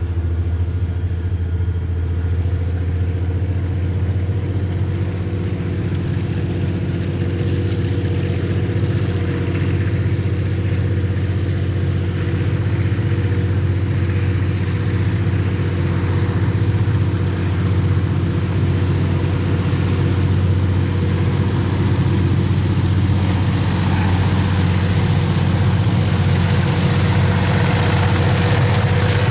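KiwiRail DC-class diesel-electric locomotive approaching, its engine a steady low drone that slowly grows louder and fuller as it nears.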